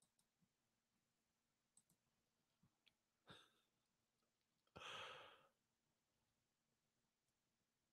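Near silence with a man breathing close to a microphone: a short breath about three seconds in and a longer exhale about five seconds in, with a few faint clicks.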